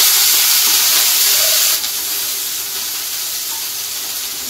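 Whole spices and cumin seeds sizzling steadily in hot oil in a wok as a tadka (phoron) is tempered. The hiss eases a little about two seconds in.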